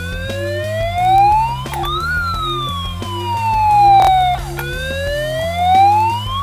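Background music with a steady low beat, and a siren wail over it: a tone that rises for about two seconds, falls for about two, then rises again. A few sharp clicks sound over it.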